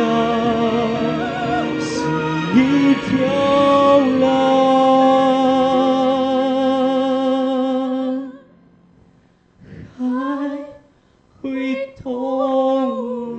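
A man and a woman singing a Chinese ballad as a duet over a backing track, holding long notes with vibrato. About eight seconds in the accompaniment drops away, and after a brief quiet gap the singing goes on in short phrases with almost nothing under it.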